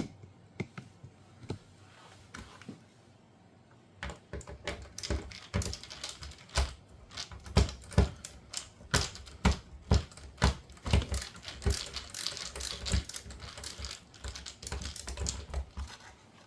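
Rapid, irregular clicking and tapping of a driver with a 3/16 socket bit working on the screws around the dishwasher door panel. It starts about four seconds in and goes on as a dense run of sharp clicks, several a second.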